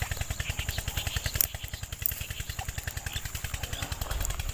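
A small engine running steadily with a rapid, even putter, with a sharp click about a second and a half in.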